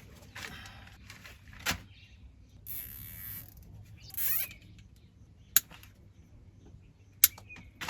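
Plastic cable ties being zipped tight around wires, several short ratcheting rasps with a few sharp plastic clicks between them.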